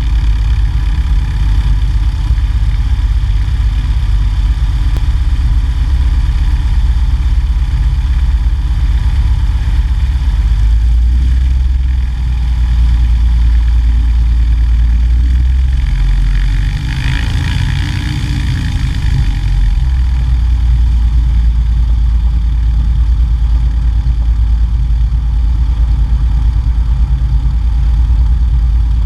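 Cessna 170A's six-cylinder Continental engine and propeller running steadily, its low drone shifting in pitch a little around ten to twelve seconds in and again around sixteen seconds in. A brief rushing hiss swells and fades around seventeen to nineteen seconds in.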